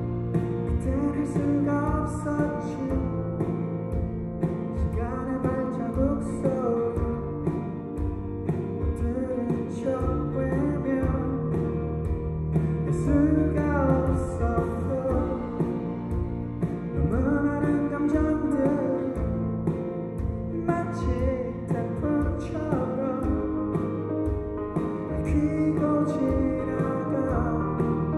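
A band playing a slow song live: a steel-string acoustic guitar played under a singing voice, with other instruments sustaining chords beneath.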